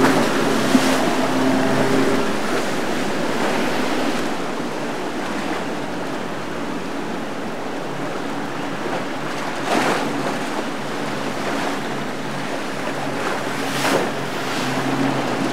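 Fast, choppy water rushing and splashing around the boats, with boat engines droning steadily in the first couple of seconds and again near the end. Two sharper splashes come about ten and fourteen seconds in.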